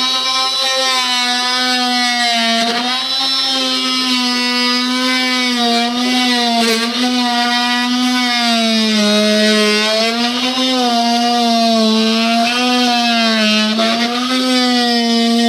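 Oscillating multi-tool cutting a speaker opening in the Jeep Wrangler JL sound bar housing: a steady, loud buzzing hum whose pitch sags and recovers every second or two as the blade bites in and eases off.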